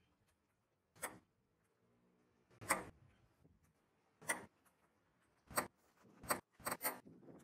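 A series of sharp, short knocks over faint background noise: single knocks about a second and a half apart at first, then three or four in quick succession near the end.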